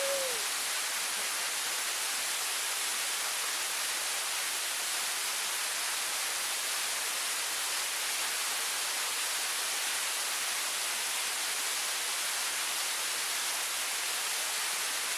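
Waterfall's falling water giving a steady, even hiss with little bass.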